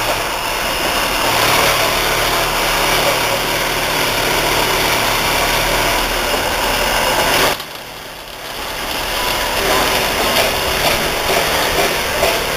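Electric angle grinders running and cutting steel, a loud steady grinding noise. It drops away suddenly about seven and a half seconds in, then builds back up.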